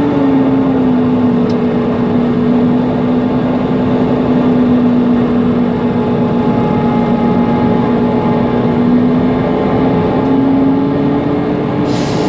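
Mercedes-Benz Conecto NGT city bus under way, its rear-mounted CNG engine and cooling fan making a steady, noisy whine over the running drone. The whine's pitch dips slightly just after the start and rises a little near the end. A short hiss comes at the very end.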